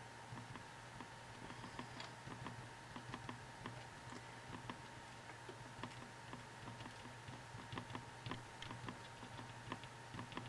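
Glue pen tip dabbing on small paper cut-out letters: a quiet string of irregular light taps and clicks, over a faint steady hum.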